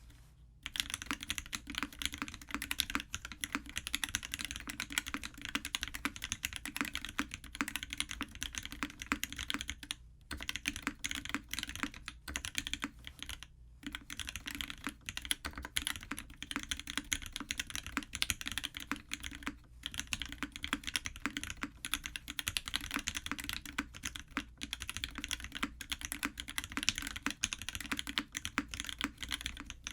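Continuous fast typing on an S+R Iron165 mechanical keyboard with lubed Alpaca linear switches in a brass plate and GMK keycaps, a dense run of keystroke clacks with a few short pauses.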